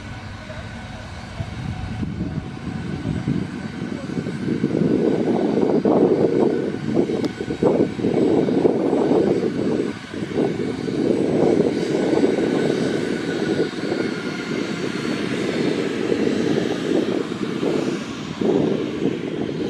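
Boeing 737-800's CFM56 turbofan engines spooling up to takeoff thrust at the start of the takeoff roll. The steady jet engine noise swells about one and a half seconds in and again about five seconds in, with a faint high whine over it.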